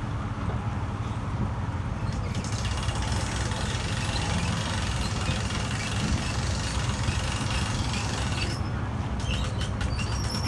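Boat outboard motor idling, a steady low rumble as the boat creeps in at low speed. A hiss comes in about two seconds in and stops about eight and a half seconds in.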